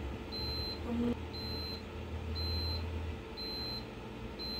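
Cuckoo IH rice cooker's electronic beeper sounding at the end of a cook cycle: four short high beeps about a second apart, then a longer beep starting near the end, over a low steady hum.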